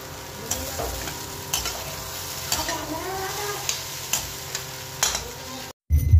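A metal spatula stirring and scraping poha with peanuts in a kadai over a steady sizzle, with about ten sharp clacks of the spatula against the pan. The sound cuts off abruptly near the end.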